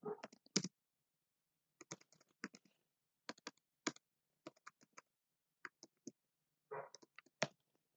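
Faint clicking of computer keyboard keys, typed in short irregular runs of a few keystrokes with pauses between.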